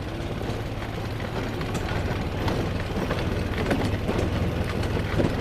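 ATV engine running steadily under load as the four-wheeler climbs a trail hill, with scattered knocks and rattles throughout.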